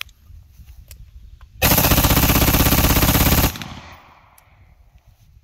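AR-15 rifle with a Rare Breed FRT-15 forced reset trigger firing a rapid string of shots for about two seconds. The trigger resets itself after each shot, so the fire comes as fast as full auto. The string stops suddenly, and the echo fades off the range.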